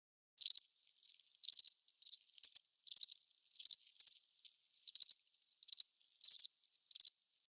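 Cricket chirping: short, high-pitched chirps repeated about every half second, somewhat unevenly spaced.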